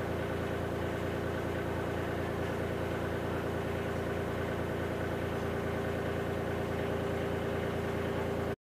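Narrowboat's diesel engine idling steadily, with an even low beat.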